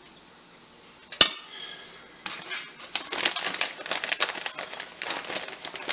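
A single sharp click about a second in, then, from about two seconds in, dense crinkling of a plastic bag of shredded cheddar cheese being handled.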